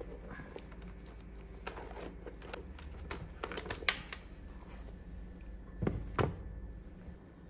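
Small clicks and rustles of cotton-gloved hands unhooking the rubber battery hold-down strap and pulling a motorcycle battery out of its plastic battery box, with a sharper knock just before four seconds in and a couple of louder knocks near six seconds as the battery comes out.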